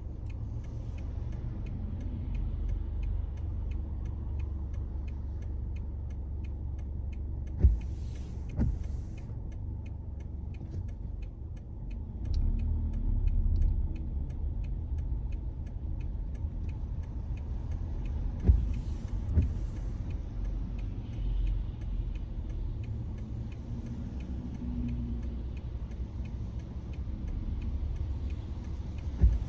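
A car driving, heard from inside: a steady low road rumble with a light hiss from the tyres. A few times, two sharp thumps about a second apart, as the wheels cross bumps or joints in the road.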